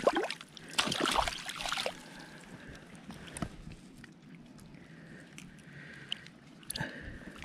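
Rainbow trout thrashing in a landing net at the water's surface, splashing and sloshing the water. The splashes are loudest in the first two seconds, then settle to quieter dribbling with a few small splashes.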